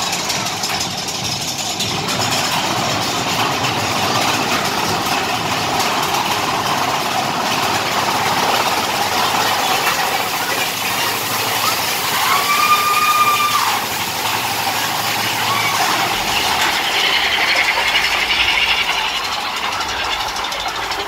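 Big Thunder Mountain Railroad mine-train roller coaster running along its track, a steady rumble and rattle of the cars. A brief squeal sounds about twelve seconds in.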